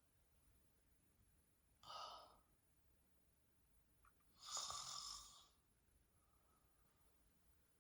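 A woman snoring softly while dozing sitting up: two snoring breaths, a short one about two seconds in and a longer one about four and a half seconds in, with quiet between them.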